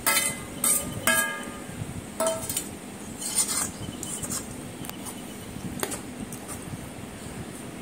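A metal ladle stirring cauliflower florets through thick masala in a metal kadai, clanking and scraping against the pan's side and ringing briefly. The clinks come several in quick succession at first, then more sparsely.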